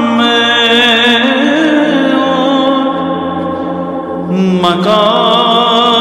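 Greek Orthodox Byzantine chant: a voice drawing out a long, ornamented melismatic line with wavering pitch over a steady low drone. It breaks off briefly about four seconds in, then takes up the next phrase.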